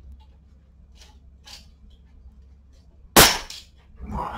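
Ratchet tie-down strap being worked on a motorcycle lift: a few faint clicks, then one loud, sharp snap about three seconds in, followed by a duller knock near the end.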